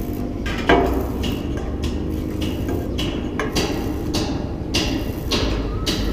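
Hammer blows on the roof framing, an irregular run of sharp knocks at about two a second over a steady low rumble.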